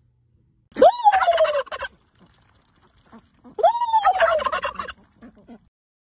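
Domestic turkey toms in strut display gobbling twice, each gobble about a second long and the two about three seconds apart.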